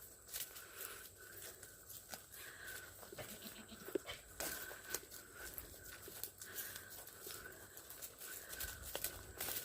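Goats bleating faintly, with scattered clicks and rustles.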